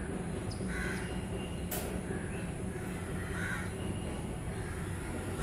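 A bird calling three times in short calls, over a steady low background rumble; a sharp click about two seconds in.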